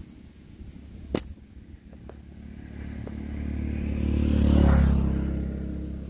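A slingshot's bands snap once, sharply, about a second in as a shot is loosed. Then a passing motor vehicle's engine grows louder, is loudest near the end, and begins to fade.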